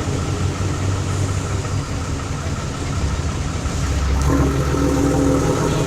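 A large bus engine running at idle, with a low rumble that grows louder about four seconds in as the engine picks up.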